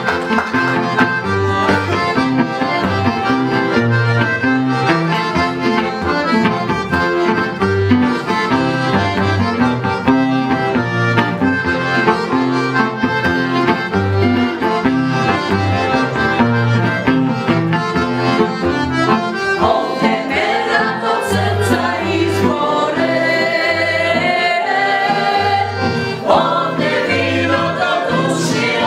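Piano accordion and acoustic guitar playing a lively folk tune with a steady bass beat; singing voices join about two-thirds of the way through.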